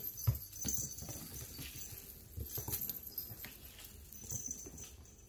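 Bengal kittens' paws thudding and pattering irregularly on a tile floor as they run and pounce, with a light crinkly rustle from a wand toy's shiny streamers. The footfalls thin out toward the end.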